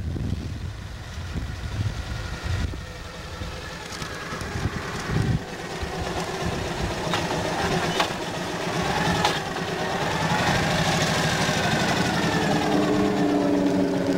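Motorcycle engine running while riding, a steady rumble that grows louder in the second half.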